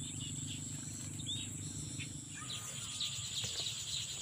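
Rural field ambience: insects buzzing steadily at a high pitch, with birds chirping, the chirps getting busier in the second half. A low hum underneath fades out about two and a half seconds in.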